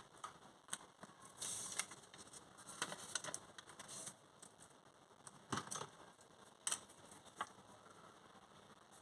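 Small objects and packaging being handled up close: scattered clicks, taps and crinkles. There is a busier stretch of crinkling around two to four seconds in and a few sharp clicks near six and seven seconds, then it quiets.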